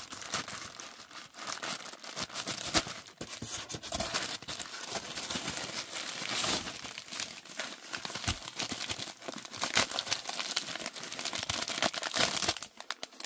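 Grey plastic poly mailer bag crinkling and rustling as it is handled and opened and a box is pulled out of it. The sound is irregular crackling, with a few louder crackles along the way.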